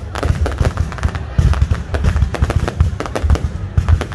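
Fireworks display: a rapid, unbroken string of bangs and deep booms, several every second.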